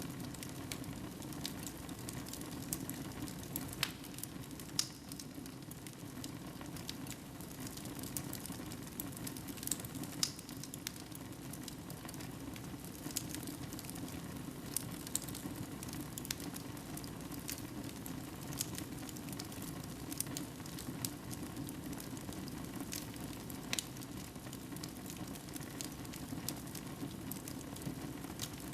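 Wood fire burning in a fireplace: a steady low rush of flame with sharp pops and crackles scattered irregularly throughout.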